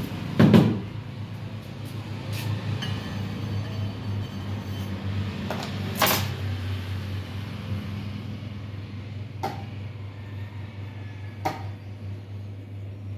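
Steady low hum under scattered knocks and clicks as a cake turntable and icing scraper are handled while smoothing buttercream. The loudest is a dull thump about half a second in, with a sharp click about six seconds in.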